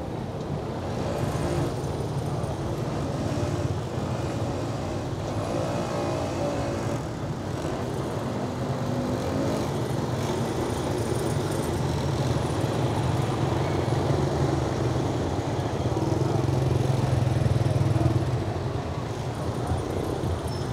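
Road traffic: motor vehicles running close by in a steady low noise that swells in the second half and eases off shortly before the end.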